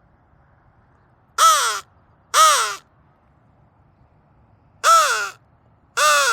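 Flextone Lightning Crow call blown as four loud, short caws: two in quick succession, a pause of about two seconds, then two more, each call bending up and falling in pitch.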